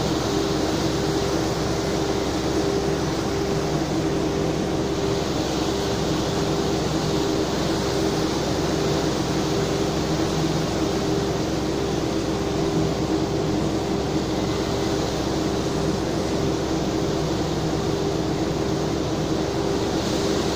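Steady drone of a ship's engines with a constant low hum, over an even rushing noise from the churning propeller wake.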